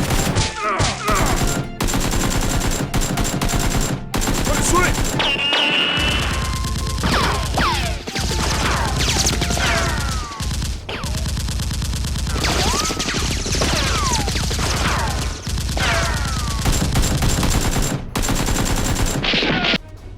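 Gunfire sound effects: dense, rapid shots and bursts of automatic fire, with repeated whistling tones that fall in pitch. The firing stops abruptly just before the end.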